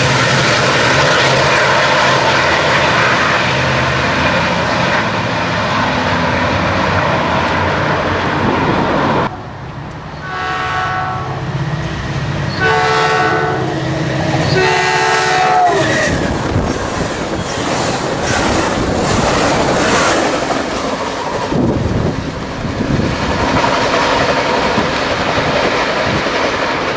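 Caltrain commuter trains: a train's rumble and wheel noise, then an approaching F40PH diesel locomotive sounds its multi-tone horn in three blasts, the last falling in pitch as it ends. The locomotive's engine and wheel clatter follow as it passes.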